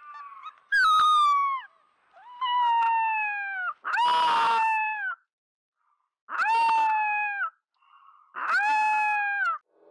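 Gray wolf pup howling: five short, high-pitched howls about a second each, each dropping in pitch as it ends, one of them rough and breathy.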